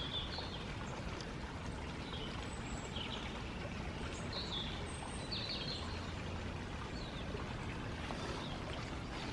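Small birds giving short chirping calls, a dozen or so scattered through, over a steady low background rumble of outdoor noise.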